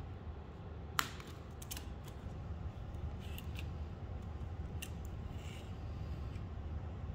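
Plastic friction hinges of a print-in-place 3D-printed folding yardstick clicking as the segments are handled and folded: a few sharp, separate clicks, the loudest about a second in, then a brief scraping rustle near the end, over a low steady hum.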